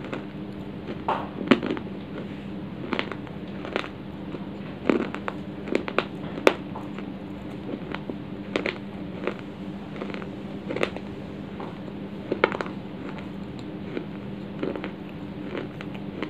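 Dry baked clay being chewed close to the microphone: irregular sharp crunches and clicks, over a steady low hum.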